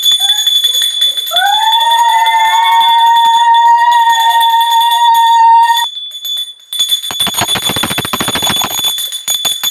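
A long held horn-like note that slides up at the start and then holds steady for about four seconds. After a brief lull, about two seconds of rapid jangling, bell-like strikes follow near the end. A faint steady high whine runs underneath.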